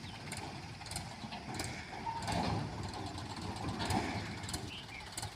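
Diesel engine of a working machine running steadily at low revs, with a few scattered clicks and knocks.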